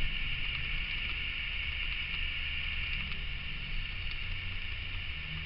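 Room tone: a steady hiss with a low hum underneath and no distinct events.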